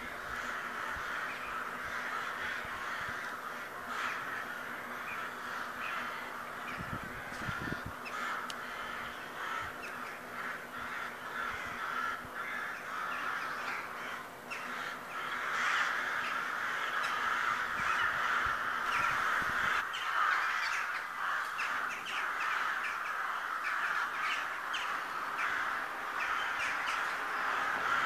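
A large flock of crows cawing over one another in a continuous din, growing louder past the halfway point.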